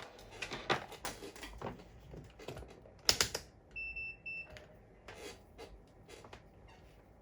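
Irregular clicks and clatter of objects handled on a workbench, with one short, steady electronic beep a little before halfway through.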